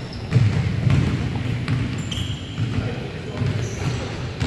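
Basketball pickup game on a hardwood gym floor: the ball bouncing with thuds and footfalls, a few short sneaker squeaks, and players' voices echoing in the big hall.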